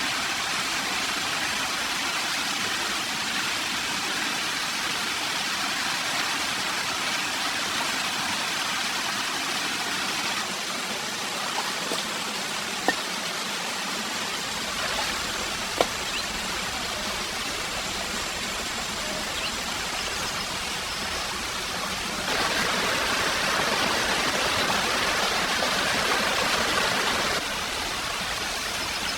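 Forest stream water rushing steadily over rocks, a continuous hiss, louder for a few seconds near the end. Two sharp clicks stand out briefly midway.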